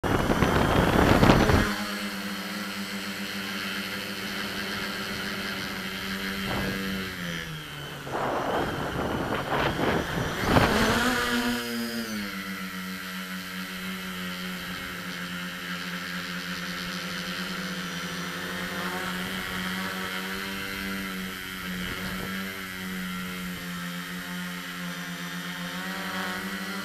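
Multirotor drone's electric motors and propellers humming, heard from a camera mounted on the craft. A loud rush of air comes in the first second and a half, the pitch drops about seven seconds in, and a loud gusty stretch runs from about eight to eleven seconds, after which the hum settles back to a steady pitch.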